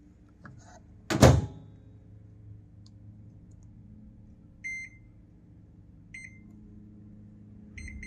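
A GE Spacemaker II microwave oven's door is shut with a single loud thunk about a second in, then its keypad gives three short high beeps a second or so apart as a cooking time is entered.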